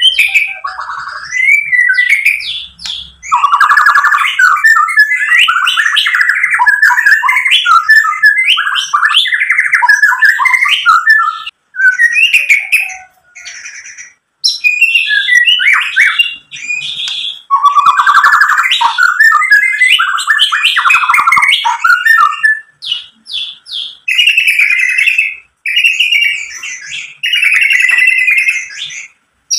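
Male white-rumped shama singing a long run of varied whistles, trills and chattering phrases, broken by a few short pauses.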